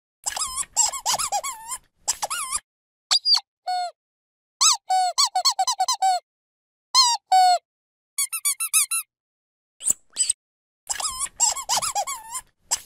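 Dog squeaky toy squeezed over and over, giving quick runs of short squeaks that bend up and down in pitch. The runs come in bursts with short pauses between them.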